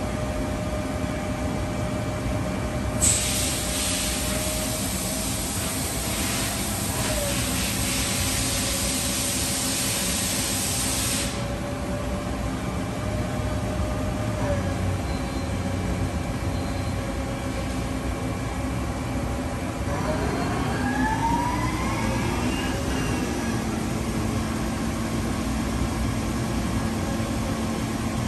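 1995 Mori Seiki ZL-35MC CNC lathe running with its chuck spinning, a steady machine hum. A loud hiss starts sharply about three seconds in and cuts off about eight seconds later. Around twenty seconds in, a whine rises in pitch and then settles into a steady lower tone.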